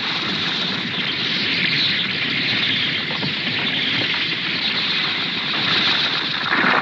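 Steady rumbling noise of a cartoon sound effect, with no clear pitch or rhythm.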